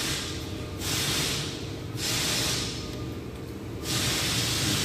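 A rushing hiss that swells and fades in a steady rhythm, about once every second and a half, over a constant low rumble.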